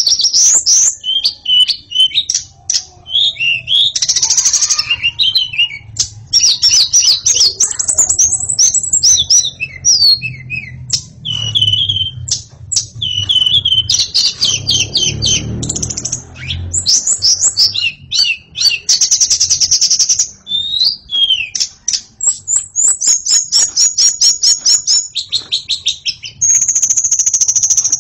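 White-rumped shama in full song: a fast, unbroken stream of loud, varied phrases mixing clear whistles, rapid trills and chattering notes.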